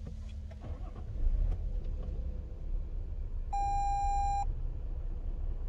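A single electronic beep, one steady tone lasting about a second, sounds a little past the middle over a steady low rumble, with a few light clicks in the first second or so.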